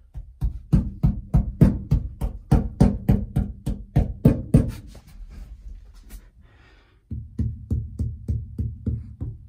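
A hand knocking on the bare steel floorboard of a Bullnose Ford F-150 cab, about three to four sharp knocks a second that ring in the thin panel. About seven seconds in, the knocking moves to the floor covered with a first layer of Noico 80 mil sound deadener, and the knocks turn to dull, low thuds: the deadener is damping the panel.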